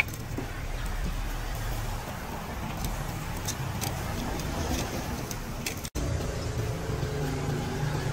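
Steady low rumble of passing road traffic, with faint scattered clicks; the sound cuts out completely for an instant a little before six seconds in.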